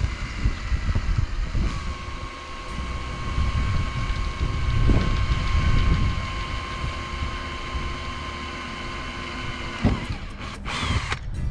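Cordless drill running steadily as it pre-drills a screw hole through the van's metal roof, stopping about ten seconds in. Wind rumbles on the microphone underneath.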